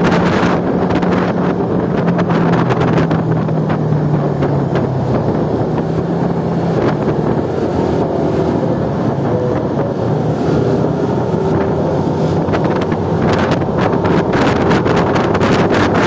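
Wind buffeting the microphone on a moving motorcycle, over the steady hum of its engine. The buffeting thins out in the middle, while the bike creeps behind traffic, and picks up again near the end.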